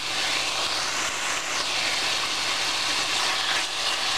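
Marinated pork tenderloin strips sizzling steadily in hot oil in a stainless steel frying pan, stirred with a wooden spoon.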